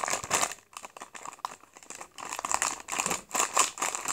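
Crinkling of a plastic Glimmies blind-bag packet being handled and squeezed in the hand, in uneven bursts, with a quieter stretch from about half a second to two seconds in.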